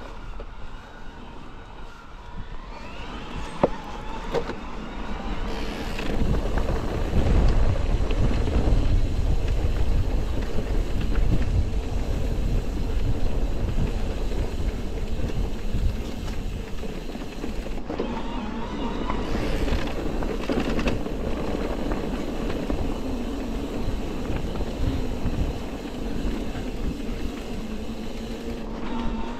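E-mountain bike being ridden: a continuous low rumble of tyres and wind that gets heavier from about seven seconds in, with a faint whine that rises and falls, and a single click a few seconds in.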